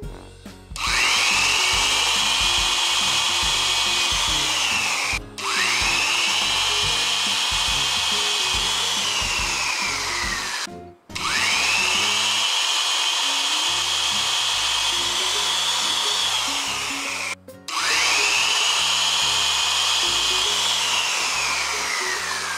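Corded electric drill with a 6 mm bit boring holes for M6 hanger bolts through a wooden board: four runs of a high motor whine with short stops between them, the pitch sagging before each stop and winding down near the end.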